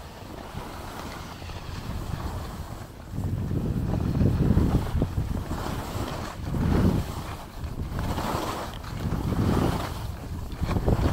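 Wind buffeting the microphone in swells as the skier moves downhill, with skis hissing and scraping over packed snow in surges.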